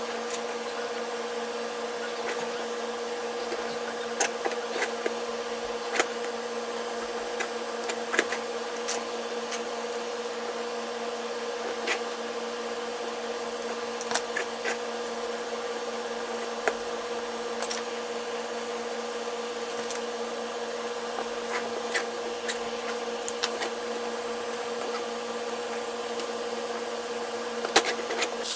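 A small DC motor running steadily at one even pitch, with scattered light clicks and taps over it.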